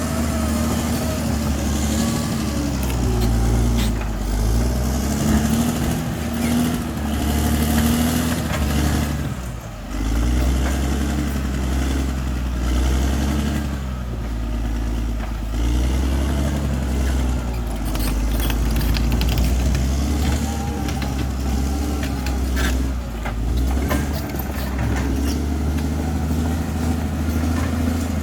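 Bulldozer's diesel engine working under changing load, its pitch rising and falling, with scattered clanks; it eases off briefly about ten seconds in.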